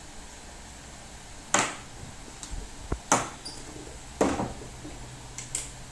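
A feeding bottle being taken apart by hand: a few sharp knocks and clicks of its parts, spread out through several seconds.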